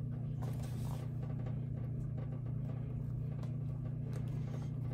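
A steady low machine hum, with a few faint clicks as spring clamps and leather are handled.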